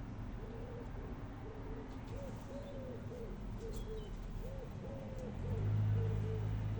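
Pigeon cooing: a long run of short, arched coos, about two a second. Near the end a steady low hum comes in.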